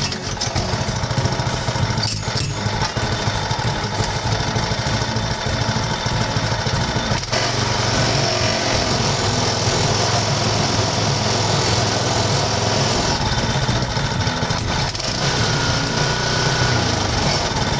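Small Kubota Super OHV tiller engine starting on a pull of its recoil starter and then running steadily: it now starts after repair of its faulty fuel cock and a new starter rope.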